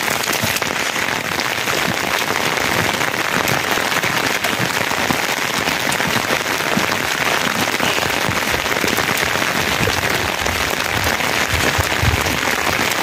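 Steady rain falling: a dense, even hiss with many small drop ticks.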